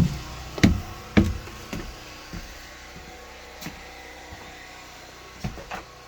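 A series of dull knocks, about two a second and growing fainter over the first two seconds, then a few scattered lighter knocks.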